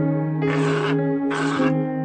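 Background music with sustained chords, over which a sea lion gives two rough barking calls of about half a second each, a little under a second apart.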